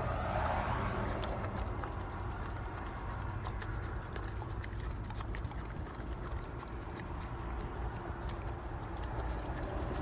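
A puppy licking and lapping from a small plastic cup: quick, irregular wet clicks and smacks of its tongue, over a low rumble of wind on the microphone.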